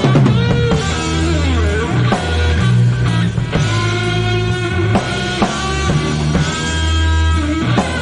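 Rock band playing an instrumental passage: drum kit and guitars, with sustained guitar notes over steady low bass notes and regular drum hits.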